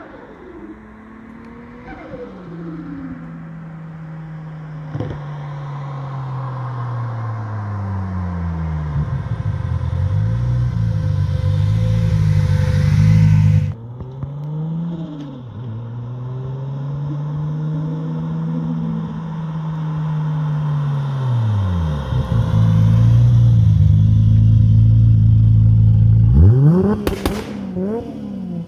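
Nissan 200SX's swapped 2JZ-GTE turbocharged inline-six under hard throttle. The engine note builds for about thirteen seconds and cuts off sharply as the throttle is lifted. It builds again to a long loud stretch, then lifts near the end with a burst of sharp pops and bangs.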